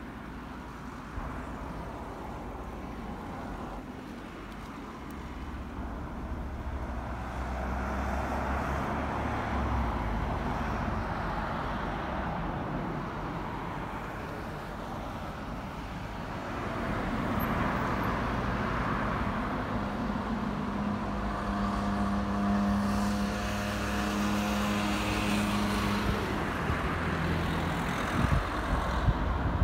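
Road traffic going by: cars passing and swelling and fading, with a steady engine drone from a vehicle about two-thirds of the way through, and a few bumps near the end.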